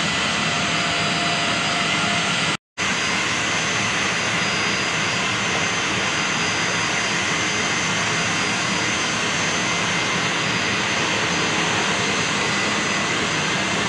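Jet aircraft engines running on the ground: a steady roar with a high whine of several held tones. The sound drops out for a moment about two and a half seconds in, then carries on.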